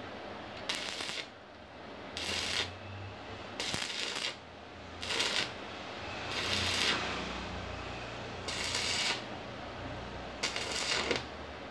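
Electric arc welding in short bursts on a chair's metal frame: seven brief crackling sizzles, each about half a second long, about a second and a half apart, as the weld is laid in short tacks.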